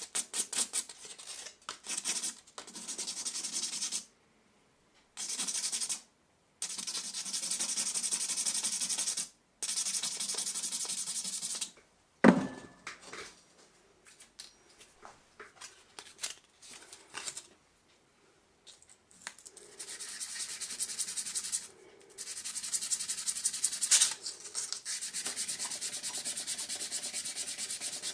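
Hand sanding of a small ring being made: spells of steady, scratchy rubbing, broken by short gaps. About twelve seconds in there is a single sharp knock that rings briefly.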